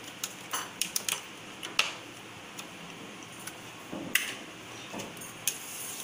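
Light plastic clicks and knocks as the lid of an electric sandwich maker is pressed shut and its clip latch snapped closed, most of them in the first two seconds, then a few scattered clicks.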